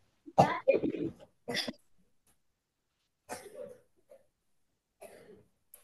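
A person coughing: a quick run of coughs near the start, then three more single coughs spread over the next few seconds.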